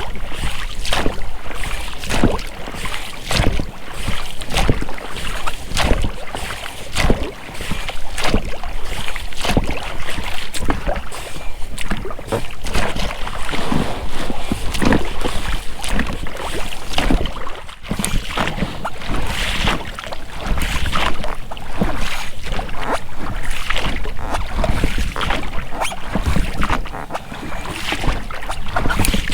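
Oars rowing an inflatable boat: repeated splashes of the blades dipping and pulling through the water, with the rubber rowlocks working at each stroke.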